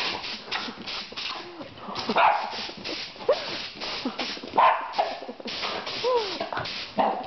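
Havanese dog excitedly barking, yipping and whining at short, rapid puffs of air hissing from an air-compressor blow gun. There are three sharp barks, at about two, four and a half and seven seconds in, with whines between them.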